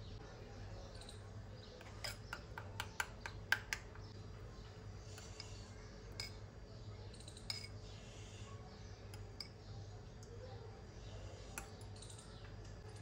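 Metal spoon clinking against a cut-glass bowl while stirring green chutney into yogurt: a quick run of clinks about two seconds in, then a few scattered taps.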